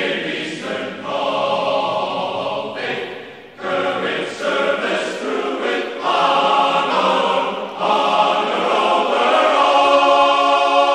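Background music: a choir singing slow, sustained chords, with a brief drop about three and a half seconds in before the singing swells again.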